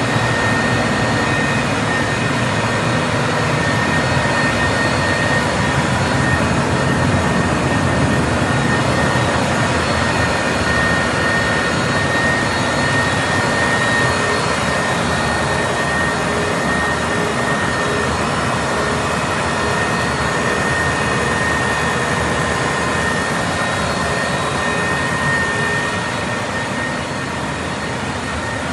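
Caterpillar G3512 V12 natural-gas generator set running steadily on a test run: a loud, even engine noise with a steady high whine, easing slightly in level near the end.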